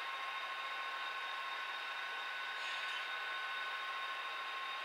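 HO scale model train running on the layout track: a steady whirring hiss with a constant thin high whine, and a short brighter rustle about two and a half seconds in.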